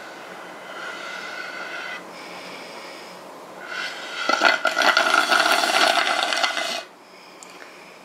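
Melted ice cream being sucked up through a plastic straw from the bottom of a small glass bowl, drawing in air with the liquid: a short slurp, then a longer, louder slurp that stops abruptly.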